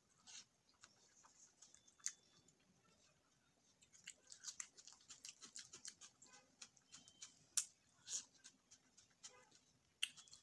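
Faint close-up eating sounds: chewing and wet mouth clicks and smacks from a mouthful of rice and kidney-bean curry eaten by hand. They come as a scattered run of small clicks, with a few sharper smacks.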